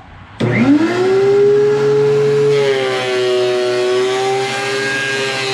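Thickness planer's electric motor switched on, its whine rising quickly to full speed about half a second in. A couple of seconds later the pitch drops slightly and the sound grows fuller as the planer comes under load from a rough board.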